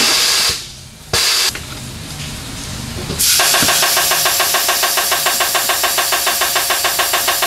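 Two short hisses of compressed air, then a road-force wheel balancer spinning a tyre-and-wheel assembly. It runs with a steady whir and an even pulse of about six or seven beats a second, starting about three seconds in.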